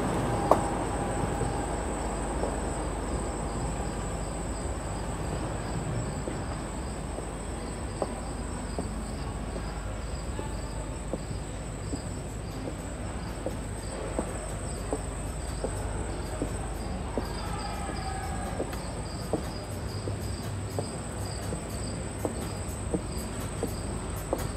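Cricket chirping from the nature soundscape piped into the ship's Central Park garden: a steady high trill with evenly pulsing chirps, over a low steady hum.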